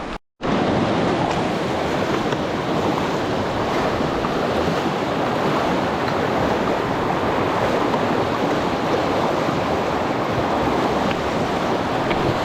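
Steady rush of a fast-flowing mountain river, an even churning of water, coming in abruptly after a split-second dropout at the start.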